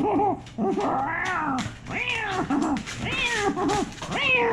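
Domestic cat meowing repeatedly: about five drawn-out meows one after another, each rising and then falling in pitch.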